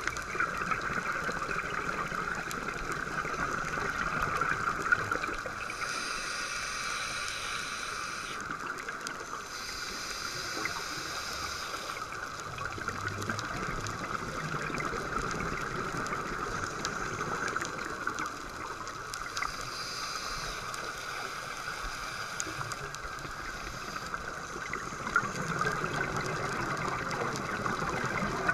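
Underwater sound of a scuba dive on a coral reef, heard through a GoPro's waterproof housing: a steady watery hiss with faint scattered crackles. Several high hissing breaths from a diver's regulator, each two to three seconds long, come about six and ten seconds in and again around twenty seconds.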